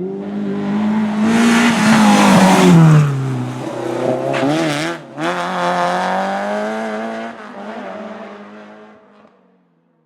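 Rally car passing at speed: the engine is loudest and drops in pitch as it goes by about two to three seconds in. There is a brief cut in the engine note about five seconds in, then it picks up again and fades away near the end.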